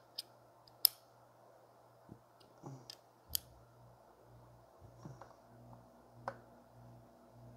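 A handful of sharp, faint clicks and light taps from small metal hand tools: a driver bit snapping into a pocket torque driver and the driver being set onto the screws of an offset optic mount. The loudest clicks come about a second in and a little past three seconds in.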